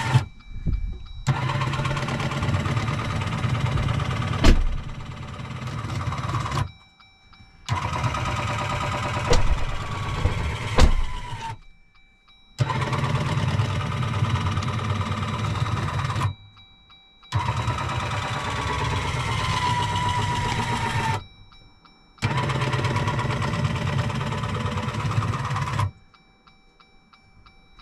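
Blue Ox Patriot brake unit running its setup cycle: its motor runs in five bursts of about four seconds each, with short pauses between, as it pushes the Jeep's brake pedal to calibrate. A few sharp clicks come during the bursts.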